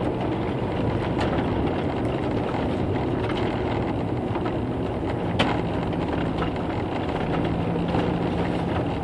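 Road vehicle driving at a steady pace, heard from inside the cab: a steady engine hum under tyre and road noise, with one sharp click about five seconds in.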